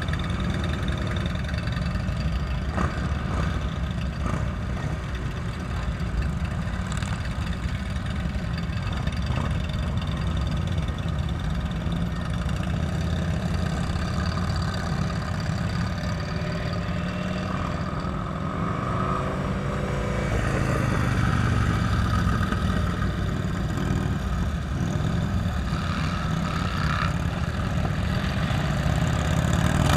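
Motorcycle engines running at low revs in a slow-moving pack of bikes, a steady rumble, with an engine revving up about two-thirds of the way through.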